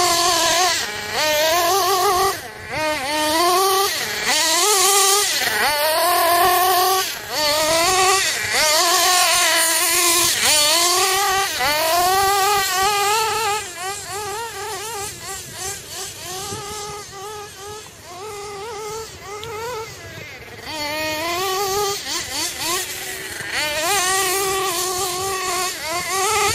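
GS Racing Storm Evo nitro RC buggy's 3.5 cc two-stroke glow engine running hard, its high whine rising and falling in pitch as it is revved up and eased off again and again. It grows fainter for a while in the middle as the buggy runs far off, then louder again near the end.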